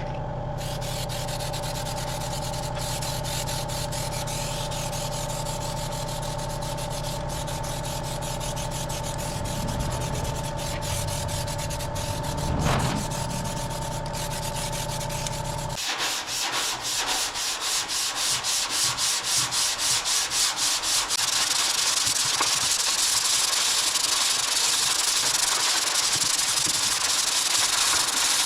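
A steady machine hum holding a couple of steady tones gives way, about halfway through, to the rasping hiss of abrasive sanding on a car bonnet panel. The sanding comes at first in quick even strokes, about four a second, then runs more continuously.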